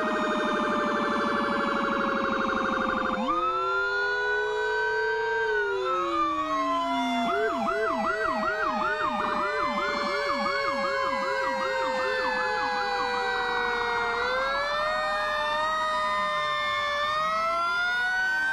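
Several fire truck sirens sounding at once as the engines pass. A fast warble in the first three seconds gives way to overlapping long wails rising and falling, with a quick yelp cycling about two and a half times a second from about seven to thirteen seconds in.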